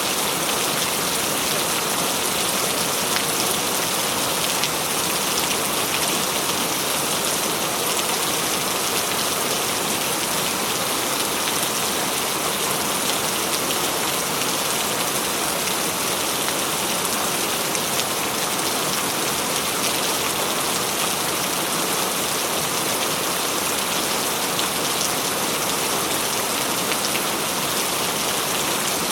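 Heavy rain falling steadily and loudly, a dense even hiss with fine drop patter.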